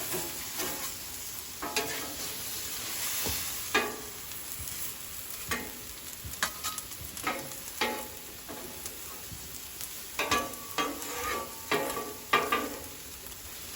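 Chicken sizzling on a Blackstone flat-top griddle while a metal spatula scrapes and clacks against the steel top, turning the pieces over.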